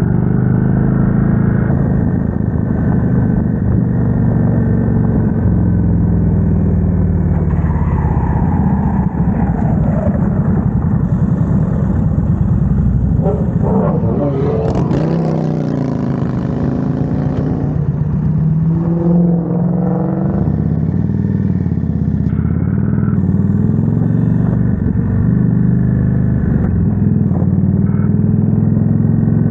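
Indian Super Chief V-twin engine running on the move, its note rising and falling with the throttle through the bends. About halfway through the engine note falls away as the bike slows hard, with a rough hissing scrape and a car passing close the other way.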